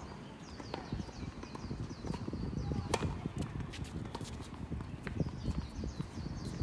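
Sharp, irregular hits of a doubles rally, with shoes squeaking on a court floor and footfalls thudding underneath.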